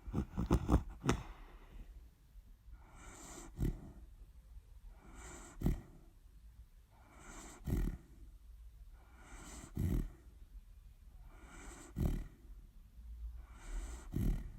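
A sleeping dog snoring. A quick run of sharp snuffles comes in the first second, then a steady rhythm of one breath about every two seconds, each a breathy hiss ending in a short, sharp catch.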